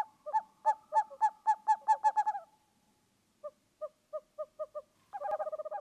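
Owl hooting in repeated runs. A quick run of hoots speeds up and fades, a fainter, slower run follows, and near the end a rapid, fast series of notes begins.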